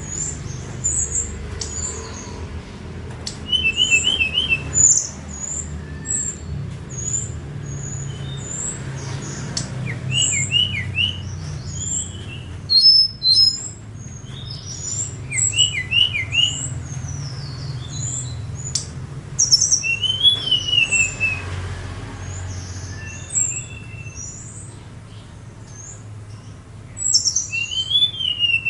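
Tledekan song: many short, high chirps and whistles, with repeated quick groups of about three notes falling in pitch, over a low steady hum.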